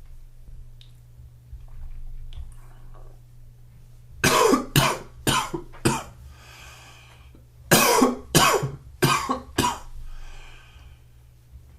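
A man coughing in two fits, four coughs then five in quick succession, drawing a noisy breath after each fit.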